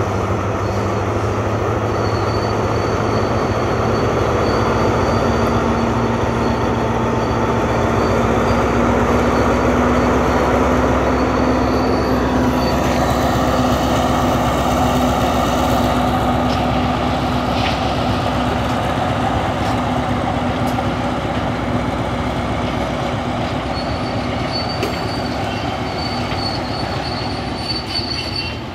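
Loaded stone hopper wagons rolling slowly along the track, with thin high wheel squeal over a steady rumble and the low drone of the Alsthom diesel locomotive's MTU engine. It eases off slightly toward the end as the train moves away.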